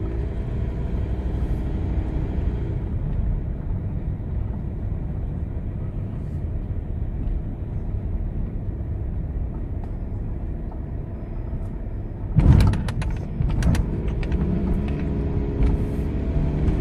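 Van engine and tyre rumble heard from inside the cab while driving slowly onto a ferry. About three-quarters of the way through, a short run of loud clanks as the wheels cross the metal ramp plates into the car deck, after which the engine note rises a little.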